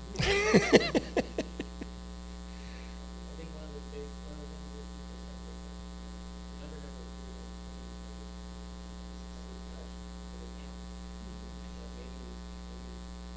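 Steady electrical mains hum with a buzzy stack of overtones, picked up through the microphone and sound system. A short burst of voice opens it.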